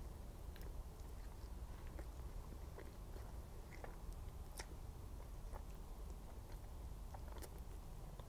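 Close-miked chewing and biting of soft, glaze-covered cream puffs: faint, irregular little mouth clicks and wet sounds over a low steady room hum.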